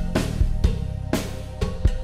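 Background music with a steady drum-kit beat over a bass line.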